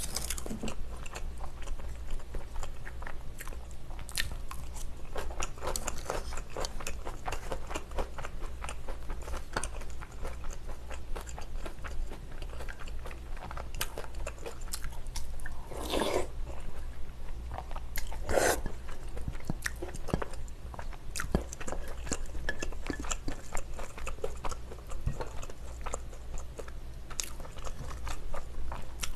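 Close-miked eating sounds: a person biting, crunching and chewing Korean side dishes and rice, with small clicks of chopsticks and spoon against ceramic bowls. Two louder, longer sounds come a couple of seconds apart about halfway through.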